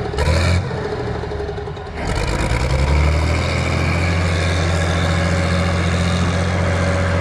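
An engine comes in about two seconds in, growing louder, then runs steadily at idle.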